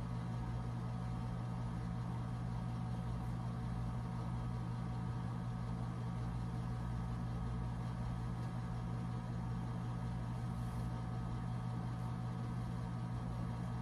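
Steady low hum of a running ceiling fan's motor, unchanging throughout.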